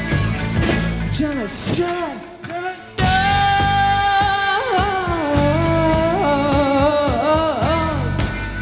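Live rock band playing, with a female lead vocal singing a long held note and sliding melodic phrases over electric guitar and bass. The music thins out and drops in loudness about two seconds in, then comes back full about a second later.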